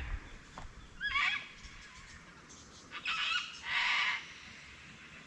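Birds calling: a short call with a bending pitch about a second in, then two harsh squawks around three and four seconds in.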